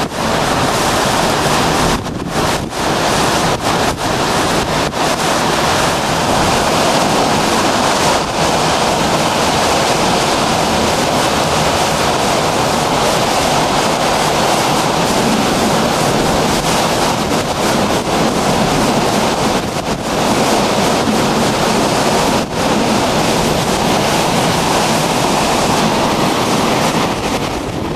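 Hurricane-force wind and driving rain: a loud, steady rush with heavy wind buffeting on the microphone, broken by a few brief dips.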